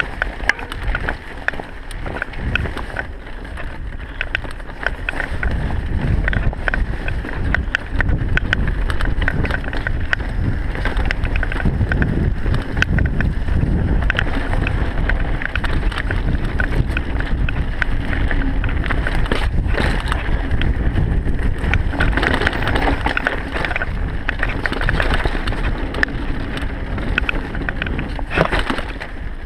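Mountain bike riding fast down a dirt singletrack: a steady rush of wind and tyre rumble on the microphone, with frequent clicks and rattles from the bike over bumps.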